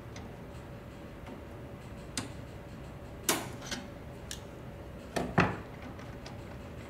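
Screwdriver and parts clicking and knocking against the gears and clutch end of a photocopier's registration transport assembly: about six short, sharp clicks, the two loudest about halfway through and two-thirds of the way in, over a faint steady hum.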